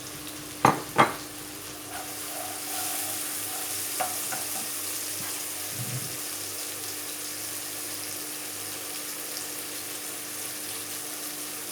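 Food frying in oil in a pan: a steady sizzle that gets a little louder about two seconds in, after two sharp knocks near the start.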